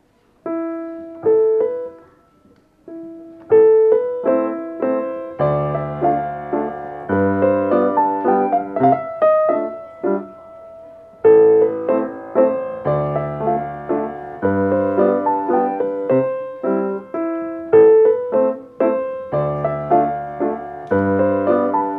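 Solo Steinway concert grand piano playing after a short pause: a few single melody notes first, then low bass notes joining about five seconds in, in a flowing, phrased accompaniment.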